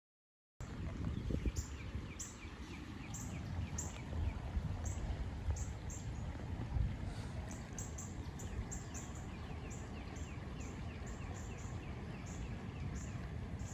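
Birds chirping repeatedly in short high notes over a steady low outdoor rumble of wind and distant traffic. The sound cuts in abruptly just after the start.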